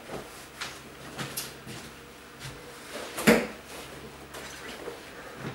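Scattered light knocks and clatter of household objects being handled, with one louder knock a little over three seconds in.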